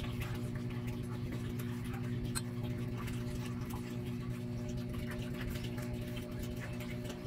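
A steady low hum of several tones, with faint scattered clicks and ticks from a kitchen knife and hands working a scored ripe mango.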